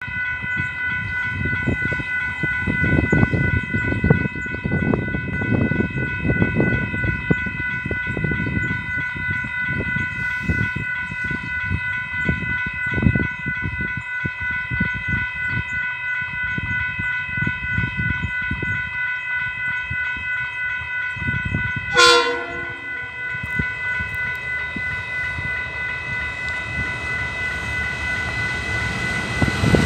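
Level crossing alarm bell ringing steadily as a train approaches, with one short blast of the locomotive's horn about two-thirds of the way through. Near the end the train's rumble grows louder as it reaches the crossing.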